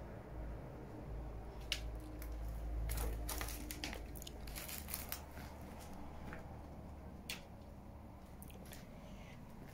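Footsteps crunching on grit and rubble: a scatter of sharp crunches and clicks, thickest between about two and four seconds in, over a low rumble that eases about halfway through.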